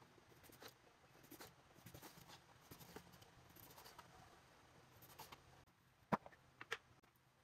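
Quiet small room with faint rustling and scattered light clicks, and two sharper clicks about six seconds in.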